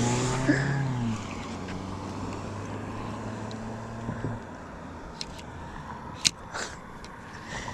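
A car driving past on the bridge: its engine note falls and fades away over the first few seconds, leaving a low hum that dies out about four seconds in. Then come a few sharp, isolated clicks.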